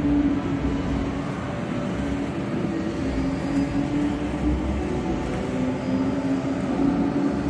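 Steady mechanical hum and rumble, with a wavering low tone running through it.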